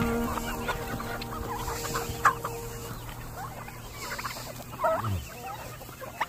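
A flock of chickens clucking, with short scattered calls that are loudest near the middle and about five seconds in. A steady hum fades out over the first few seconds.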